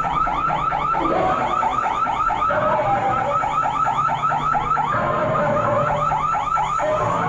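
An electronic alarm sounding continuously as a rapid, regular warble of short chirps, about six a second.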